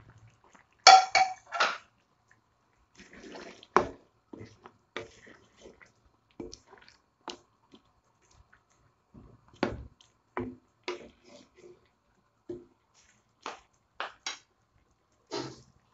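Wet splashes and plops in a wok of simmering curry sauce as potato chunks go in and the pot is stirred, with scattered clinks and scrapes of the utensil against the wok. The loudest splashes come about a second in; the rest are short, separate knocks and splashes.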